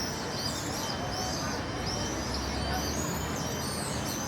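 Many small birds chirping, short high arching calls repeating several times a second, over the steady hum of traffic on a large traffic circle. A low vehicle rumble swells briefly around the middle.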